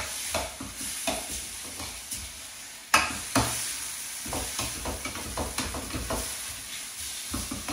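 Chicken pieces in a spiced onion and tomato sauce sizzling in a frying pan while being stirred, a spoon scraping and knocking against the pan again and again, with a sharp knock about three seconds in.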